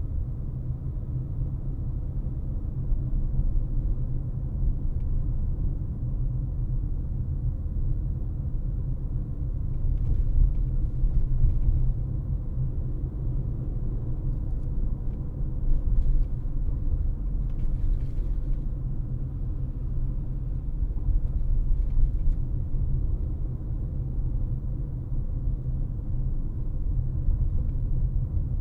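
Steady low road rumble of a car driving, with a few short hissing swells coming and going.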